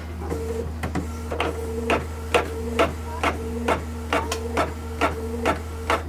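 Canon PIXMA iP2770 inkjet printer printing a test page: a steady motor whine broken by a click about twice a second as the print head shuttles across and the sheet feeds out.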